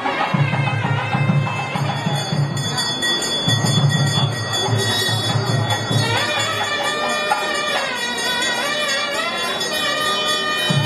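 Traditional temple music: a drum beating through the first half, and a reedy wind melody that wavers up and down over a steady high drone.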